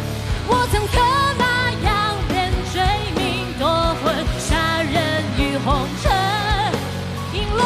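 Chinese-style (guofeng) rock song: a high, wavering melody line over drums and a steady bass.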